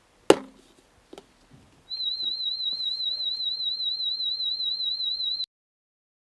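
Audiometer warble tone: a single high-pitched tone wavering rapidly in pitch, used as a frequency-specific test sound in a child's behavioural hearing test. It starts about two seconds in and cuts off suddenly. A sharp click comes just before it.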